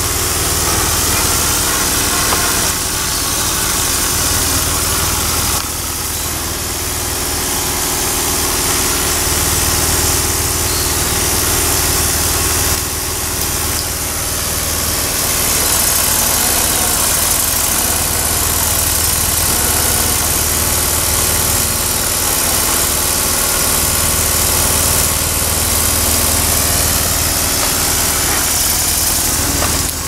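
A small engine running steadily, with a low hum and a strong steady hiss over it.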